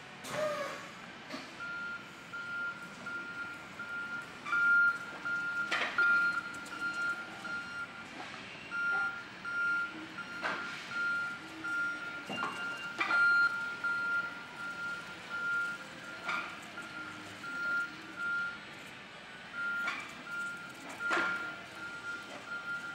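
Warning beeper on an electric Yale order picker forklift, beeping steadily about twice a second while the truck drives, with two short pauses. A few sharp knocks and clunks from the truck sound between the beeps.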